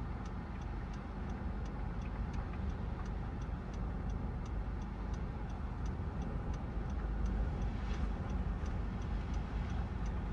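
Steady low rumble of a running vehicle with a regular light ticking, about three ticks a second.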